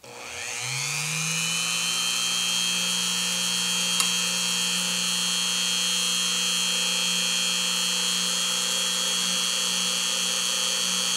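Dremel rotary tool in a drill press stand switched on, spinning up with a rising whine over about a second and a half, then running steadily at its lowest speed without cutting. A brief click about four seconds in.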